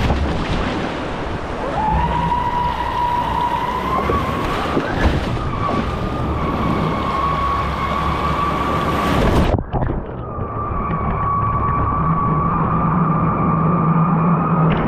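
Electric motor of a radio-controlled bait boat, heard up close, running with a steady high whine as it drives out through breaking surf, over a rush of water and spray. The whine glides up in pitch about two seconds in. A loud hiss of water and wind cuts off suddenly a little past halfway.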